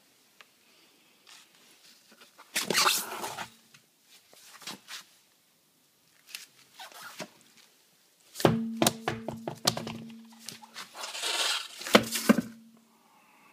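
Handling noise and knocks around an alloy wheel on its tyre, with scraping and rustling stretches. A cluster of sharp knocks about two-thirds of the way in, and another knock near the end, each leave a short, steady ringing tone.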